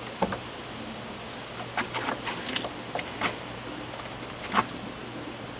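Iron weight plates and their hanger knocking and clinking as the load is hung from a reinforced concrete beam: a handful of sharp knocks, loudest about four and a half seconds in, over a steady low hum.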